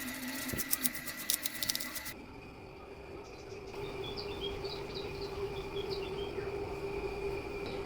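A quick run of sharp clicks and rattles that stops suddenly about two seconds in. From about four seconds in, birds chirp in short high calls over a steady low hum.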